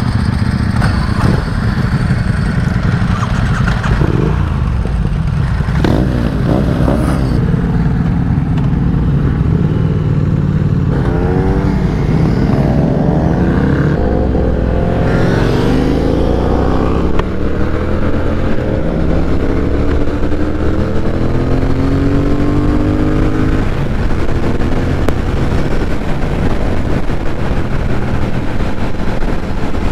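Triumph Thruxton 1200 parallel-twin motorcycle engine pulling away and accelerating hard through several gears, its pitch climbing and dropping back at each shift, with wind rushing past at speed.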